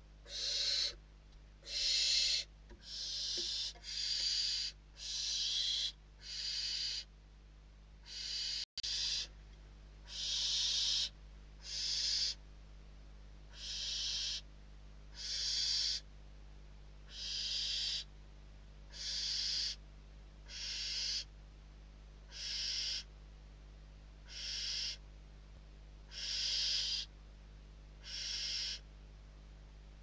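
Barn owl chicks giving their hissing, snore-like begging calls, one long hiss about every one and a half to two seconds, on and on: the food-begging of hungry nestlings.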